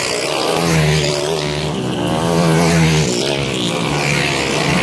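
Dirt bike engines running hard at full throttle, the pitch rising and falling repeatedly as the riders work the throttle along the track.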